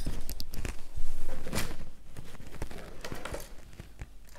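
Handling of a metal binder clip: a scatter of small clicks and taps as it is picked up and worked, with light rustling.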